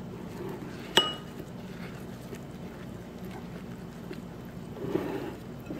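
A gloved hand squeezing and swishing palm sugar through coconut milk in a glass bowl: soft wet squelching and sloshing over a steady low hum, with one sharp, ringing clink of the glass about a second in.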